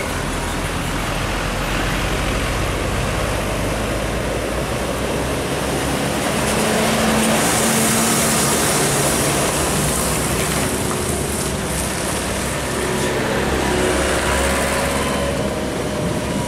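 Heavily loaded Isuzu Giga truck's diesel engine labouring uphill, loudest as it passes close about halfway through, amid road traffic.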